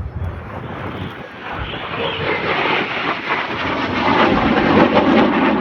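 An aircraft making a pass, its rushing engine roar building to its loudest near the end.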